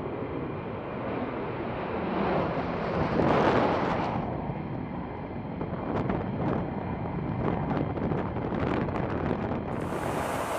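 F-15E Strike Eagle twin-engine jet taking off and climbing away: a rushing jet roar that swells about three seconds in, then fades with a run of sharp crackles.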